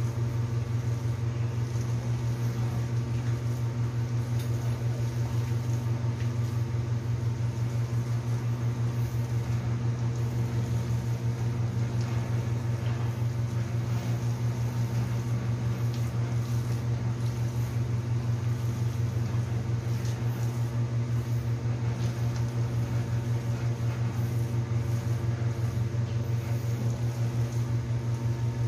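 A steady low mechanical hum with an even pitch and overtones, unchanging throughout, like a kitchen appliance motor running.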